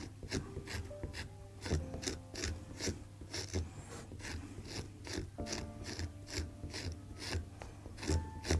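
Table knife scraping mould off the rind of a hard cheese wheel in quick, even strokes, about three a second, over quiet background music.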